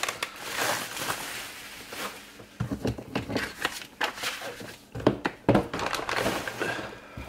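Bubble wrap and plastic bags holding resin model parts crinkling and rustling as they are handled, with a few knocks along the way.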